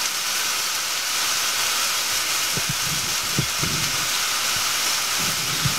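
Bowfin fillets frying on a hot Blackstone flat-top griddle: a steady sizzling hiss.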